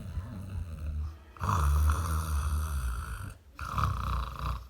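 A man snoring heavily in his sleep, deep and loud. A softer snore comes first, then two long loud snores with a short break between them, loud enough to be likened to a tractor.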